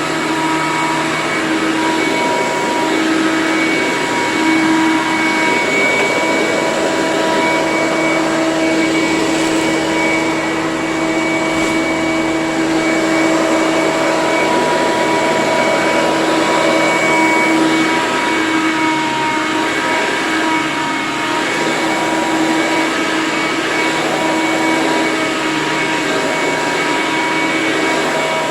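Eureka The Boss 10-amp upright vacuum cleaner running steadily, a motor whine over a rushing hiss of air.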